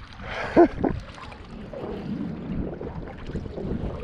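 Wind buffeting the microphone over choppy lake water lapping at a small fishing boat, a steady rushing noise. A brief voice-like grunt rises and falls about half a second in.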